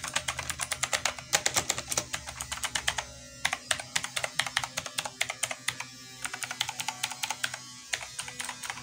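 Fast typing on a GamePower Warlock mechanical keyboard with clicky blue switches: a rapid, even run of sharp key clicks, with a brief lull about three seconds in.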